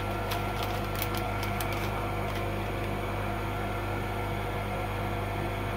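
Solder fume extractor fan running with a steady electrical hum, with a few faint light clicks in the first couple of seconds as small parts are handled.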